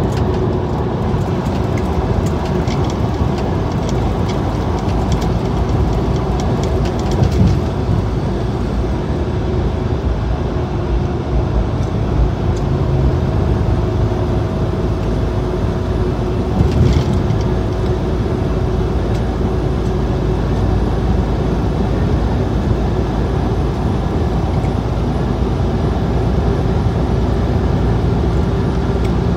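Steady road drone inside a truck cab at highway speed: engine hum and tyre noise, with two brief bumps along the way.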